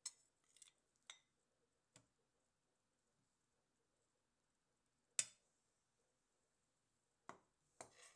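About seven short, sharp clicks and knocks at uneven spacing against near silence, the loudest about five seconds in.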